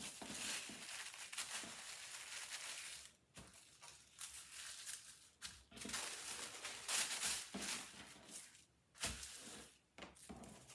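Thin sewing-pattern paper rustling and crinkling as it is folded, turned over and smoothed by hand, in uneven stretches with short crackles, loudest about seven seconds in.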